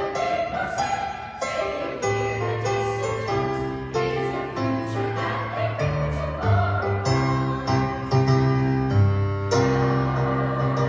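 Eighth-grade chorus singing together with electronic keyboard accompaniment, held notes moving from chord to chord over low sustained bass notes.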